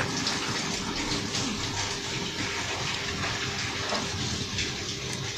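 Steady background hiss of room noise with a faint steady hum, and a light click about four seconds in.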